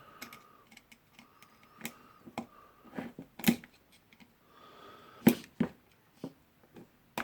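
Screwdriver prying a spring retaining ring off a rotary hammer's tool holder: irregular metal clicks and scrapes, with two sharper clicks about three and a half and five seconds in.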